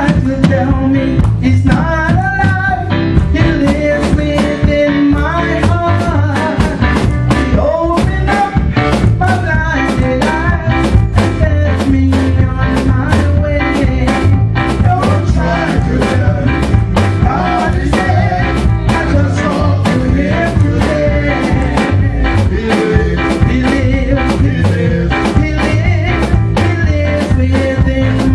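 Upbeat gospel music with a steady drum beat, heavy bass and singing.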